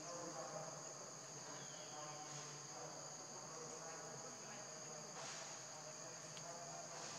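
Steady, high-pitched insect chorus in the forest, with faint short pitched calls underneath.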